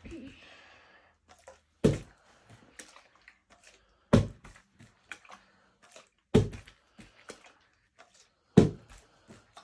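A plastic drink bottle being flipped and landing on carpet with a dull thud, four times about two seconds apart, with light clicks of the bottle being handled between landings.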